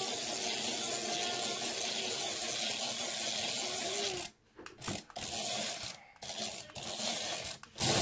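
Small electric drive motor of a remote-control poop toy whirring as it drives across a table, steady for about four seconds, then in short stop-start bursts.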